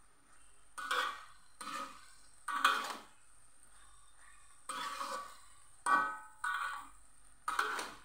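A black slotted spatula scraping and knocking against an aluminium wok while stir-frying long beans and tempeh cubes, about seven irregular strokes.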